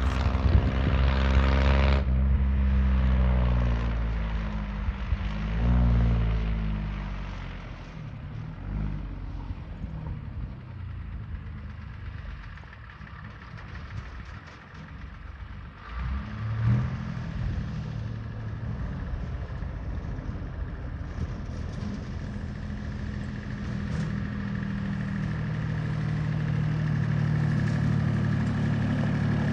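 The GMC Napco K5500's DH478 Toroflow V6 diesel running as the truck drives along a gravel road, the engine note rising and falling early on and growing steadily louder as the truck comes closer near the end.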